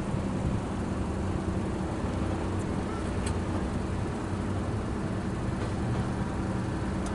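Freight train rolling past, with the steady low drone of a diesel locomotive engine over a continuous rumble.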